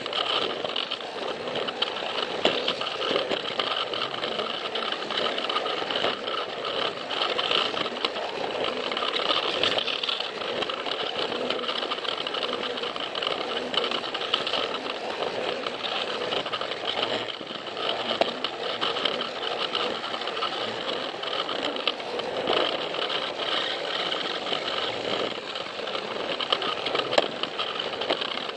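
Battery-powered Plarail toy train's small electric motor and gears running with a steady whine as it travels along plastic track, with a light rattle of the wheels and cars.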